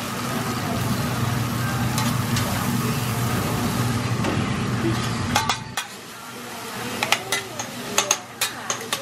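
Food sizzling on a hibachi steel griddle while a metal spatula scrapes and chops at it. After about six seconds the steady sizzle drops away, and sharp clicks of the spatula striking the griddle come repeatedly.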